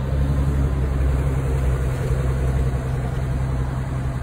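An engine idling steadily: a low, even hum that starts abruptly.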